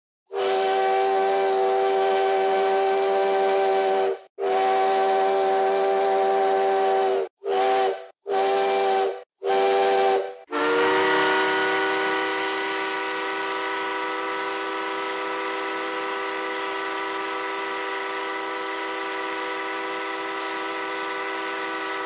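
Steam locomotive chime whistle sounding several notes at once: two long blasts, then three short ones. About ten seconds in, a long blast on a different chord starts with a rush of steam hiss and is held for about eleven seconds before cutting off.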